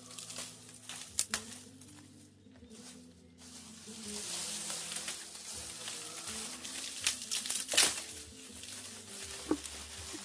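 Dry twigs and brushwood crackling and snapping as they are pushed into the firebox of a wood-fired hearth and catch, with sharp snaps about a second in and again near eight seconds. Soft background music with long held notes plays underneath.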